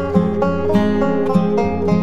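Background instrumental music of plucked strings, picked notes changing several times a second over a steady level.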